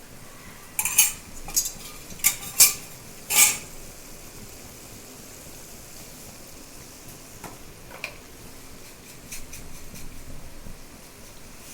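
Metal utensil clinking against a metal cooking vessel, about five sharp clinks in the first few seconds and two fainter ones later, over a faint steady sizzle of frying.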